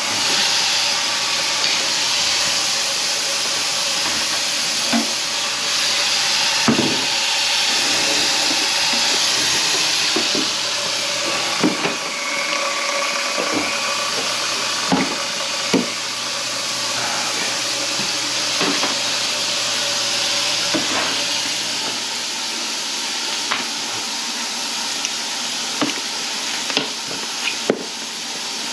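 Steady rushing hiss of water, with a steady machine hum underneath and scattered sharp knocks and clunks from clearing a grease-clogged kitchen sink drain line.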